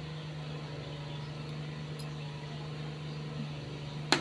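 Steady low room hum, then near the end a single sharp clack as a small ceramic bowl is set down on a wooden tray.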